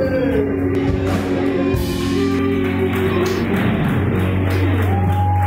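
Live rock band playing, electric guitars to the fore, with a long held note sliding slowly down in pitch over the first three seconds above a steady low note, and a new higher note held near the end.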